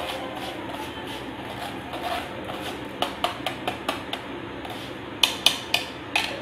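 Steel spoon clinking against a stainless-steel mesh strainer of fried moong dal as it is drained over a kadai of hot oil: a run of light clinks from about halfway, then four louder ones near the end, over the steady sizzle of the oil.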